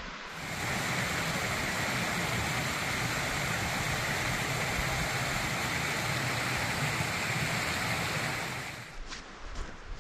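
Small forest stream running over rocks: a steady rush of water that starts just after the beginning and stops about a second before the end. A few light footsteps follow.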